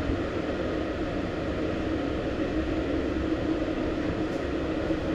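Steady mechanical hum and rumble of a moving cable car, heard from inside the cabin, with a low steady tone running through it.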